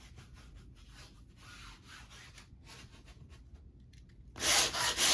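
Folded 120-grit sandpaper rubbed by hand over a varnished canvas in faint, uneven strokes, scuffing the varnish. A much louder burst of rubbing comes about four seconds in.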